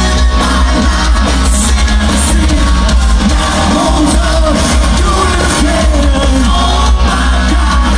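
Live rock band playing loudly, with a male singer's lead vocals over drums and electric guitar, heard from among the audience.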